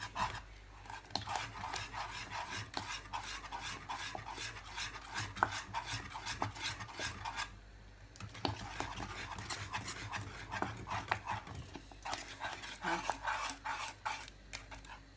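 Wire whisk beating thickened lemon pastry cream in a metal saucepan: a fast, continuous run of clicking scrapes against the pan. It pauses for about a second halfway through as the whisk is lifted, then starts again.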